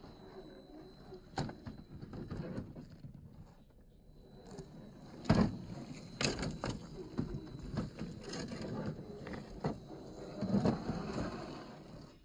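1/10-scale RC rock crawler on an MST CFX chassis working over rocks: tyres and chassis clunking and scraping on stones, with loose gravel crunching. Irregular knocks throughout, the loudest about five seconds in.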